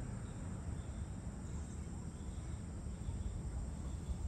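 Outdoor ambience of faint, high insect chirps repeating about once or twice a second, over a steady low rumble.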